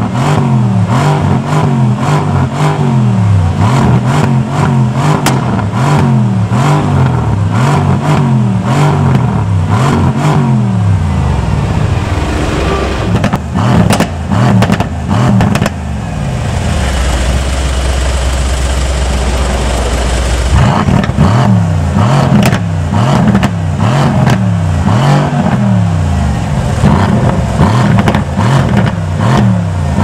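Mercedes-AMG C63 twin-turbo V8 revved repeatedly while standing still, climbing and dropping about once a second with crackles from the exhaust. Midway it settles for a few seconds to a steady idle with a hiss.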